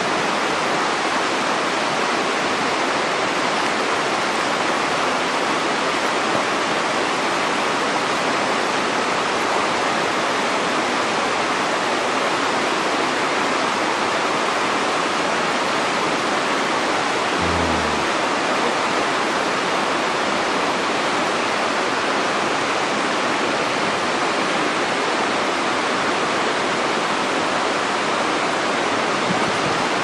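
Steady rush of the fast, shallow river below Shirahige Falls running over rocks. A brief low thump comes just past halfway.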